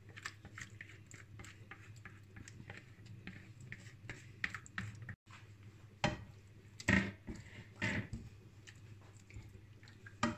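Spatula scraping thick mashed carrot out of a bowl into a non-stick pan with many small soft squelches and scrapes, then spreading the mash in the pan with a few louder strokes in the second half.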